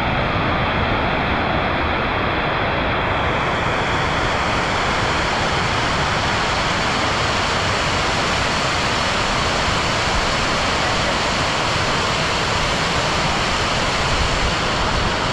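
Overflow water from Bhushi Dam rushing in a loud, steady cascade down the dam's stepped stone spillway.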